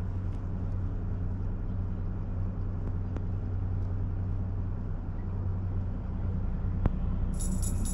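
Steady low engine drone, a constant hum with no change in pitch, with a single sharp click about seven seconds in.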